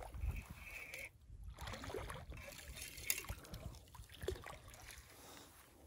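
Faint splashing of a hooked fish in pond water as it is reeled in and lifted out, with scattered small handling sounds from the rod and reel.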